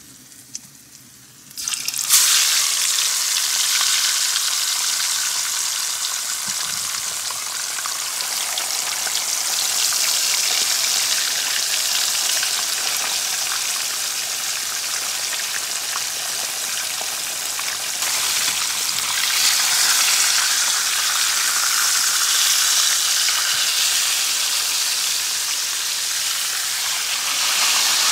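Hot oil in a frying pan: a faint sizzle around garlic cloves, then about two seconds in a loud, steady sizzle as whole seasoned fish fry in the oil.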